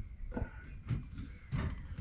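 Wind rumbling on the microphone, with three short rustling knocks.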